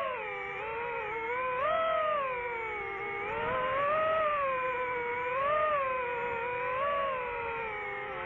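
DJI FPV quadcopter's motors and propellers whining, the pitch rising and falling every second or two as the throttle changes.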